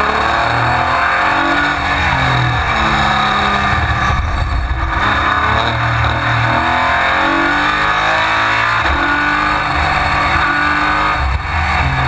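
Racing prototype's engine heard from inside the cockpit at speed, its revs rising and falling over and over as the driver shifts gears, with a brief drop in the note about four seconds in and again near the end.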